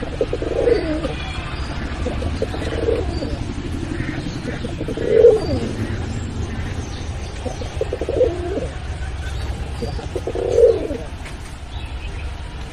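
Domestic pigeon cooing: five low coos about two and a half seconds apart, over a steady low hum.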